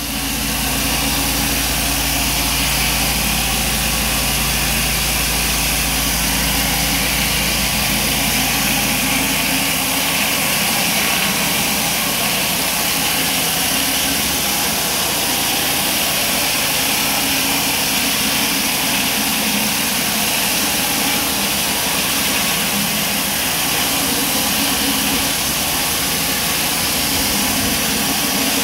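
Pressure-washer flat surface cleaner running over block paving: a steady, loud hiss of the high-pressure jets from its spinning spray bar striking the bricks under the hood. A low hum underneath drops away about nine or ten seconds in.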